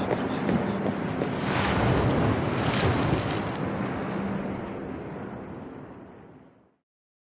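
Soundtrack outro: a noisy wash like surf or wind over a faint low drone, fading out to silence near the end.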